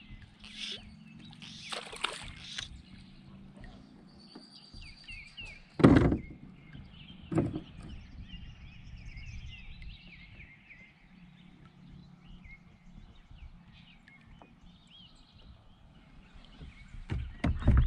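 Knocks on a plastic kayak as gear is handled: one loud thump about six seconds in, a lighter one a second and a half later, and a string of knocks near the end. Birds chirp steadily in the background.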